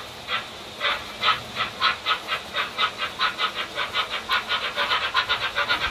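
Steam chuffs of an H0-scale model Class 39 steam locomotive pulling away, quickening steadily from about two puffs a second to six or seven a second.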